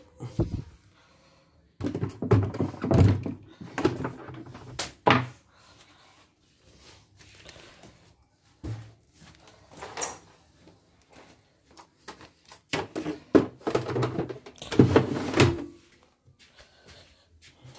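Two clusters of thumps and knocks, the first starting about two seconds in and the second about thirteen seconds in, with a single sharp knock between them.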